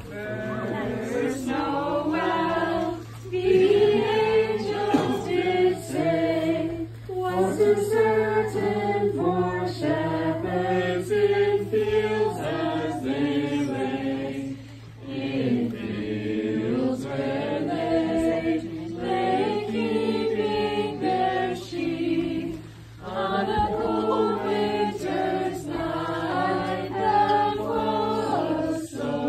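Small group of carolers, men, women and a child, singing a Christmas carol together unaccompanied, in phrases with short pauses between them.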